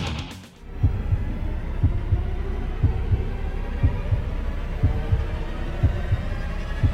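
Heartbeat sound effect: low double thumps about once a second over a low hum.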